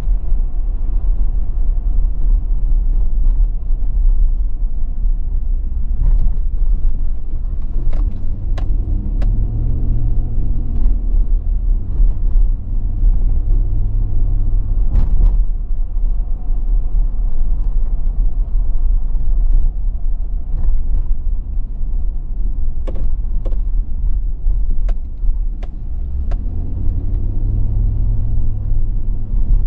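Car engine and road rumble heard from inside the moving car's cabin, steady and low. The engine note rises a couple of times as the car speeds up, and a few sharp clicks come in small clusters.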